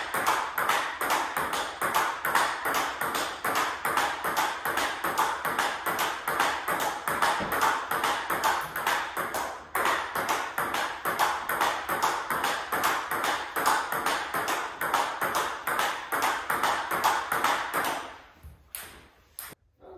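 Table tennis forehand drive rally: the ball clicks off the bats' Hurricane 3 Neo rubbers and the table in a fast, even rhythm. The rally breaks off briefly about ten seconds in, resumes, and stops near the end.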